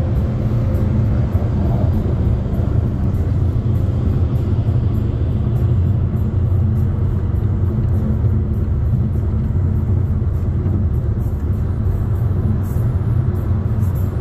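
Steady low road and tyre rumble of a car cruising at highway speed, heard from inside the car.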